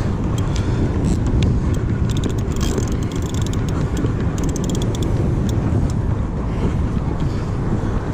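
Wind buffeting the microphone with a steady low rumble, over clusters of light ticking from a Penn Battle spinning reel being cranked during the first few seconds.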